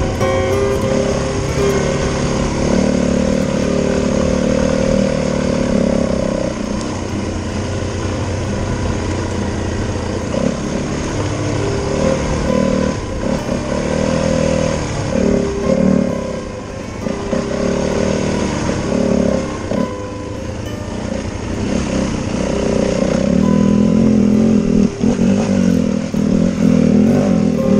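Enduro dirt bike engine running as the bike is ridden along a trail, its pitch rising and falling with the throttle. It gets louder in the last few seconds.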